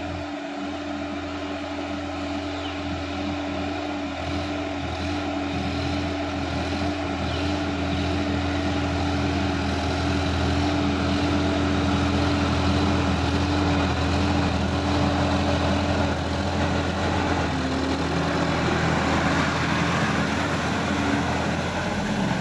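Sonalika DI-50 RX tractor's diesel engine running steadily under load while its rotary tiller churns through flooded paddy mud. The engine sound grows louder as the tractor comes closer.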